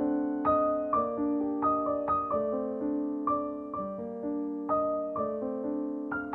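Background piano music: a calm melody of single notes over held chords, a new note struck about twice a second.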